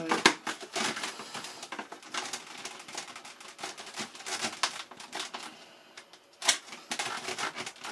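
Small self-tapping screw driven by hand with a screwdriver into a plastic fitting on a foam model airframe: a run of irregular small clicks and creaks as the driver turns and is regripped, with a louder click about six and a half seconds in.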